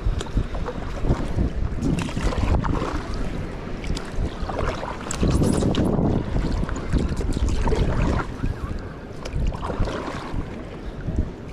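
Water splashing and lapping around a stand-up paddleboard being paddled, with wind rumbling on the microphone. The splashes come irregularly, and the wind rumble stays heavy.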